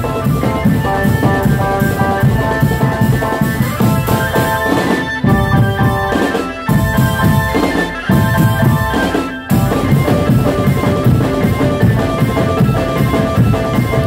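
Loud drum band music: drums beating under a sustained melody, broken by a few brief sharp gaps between about five and nine and a half seconds in.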